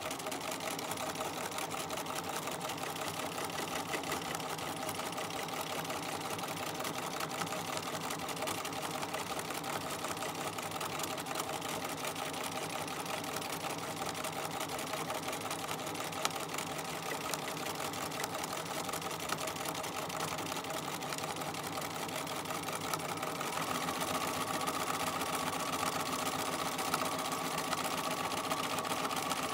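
Sewing machine running steadily at speed, stitching free-motion quilting through a padded mini quilt with the feed dogs down. A little past three-quarters of the way through, its running note grows stronger and slightly louder.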